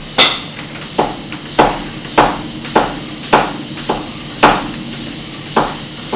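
Strokes of a bicycle pump inflating a tubeless BMX tire, a sharp knock on each stroke, roughly every half-second to second.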